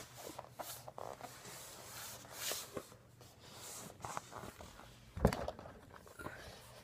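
Handling noise from a photo album being brought out and opened: soft rustles and small clicks, with one sharper knock about five seconds in.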